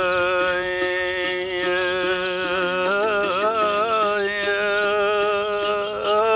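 Zhuang 'tian' singing: one voice holding long notes, its pitch wavering and bending about halfway through, over a steady run of short plucked notes on the tianqin, the Zhuang two-string lute.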